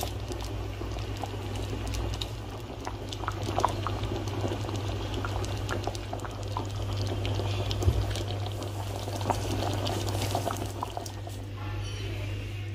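Pasta in yogurt sauce simmering in a pot on a gas stove: continuous bubbling with small scattered pops, over a steady low hum.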